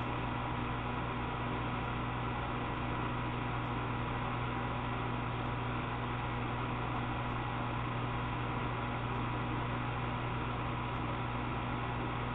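Steady hum and hiss with a few constant tones and no distinct events.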